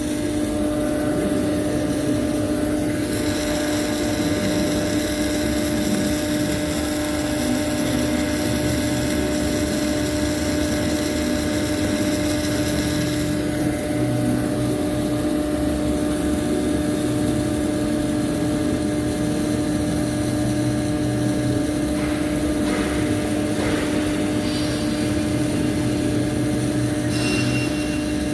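Steady machine hum with one constant pitch, running evenly over a hiss.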